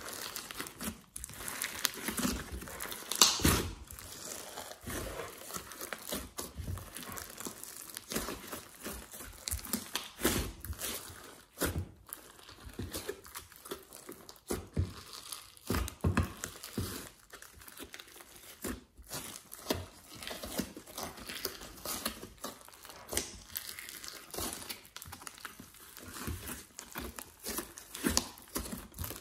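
Hands kneading and squeezing glossy slime mixed with clay and glitter in a glass dish: wet squishing with irregular crackles and snaps that run on continuously, loudest about three seconds in.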